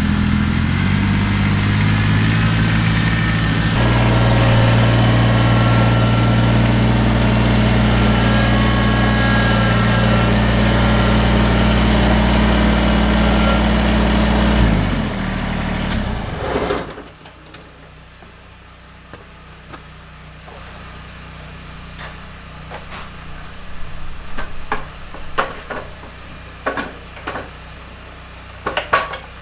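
Kubota BX compact tractor's three-cylinder diesel engine running steadily. About fifteen seconds in its pitch sinks and it falls away, leaving a much quieter background with a few scattered knocks and clicks.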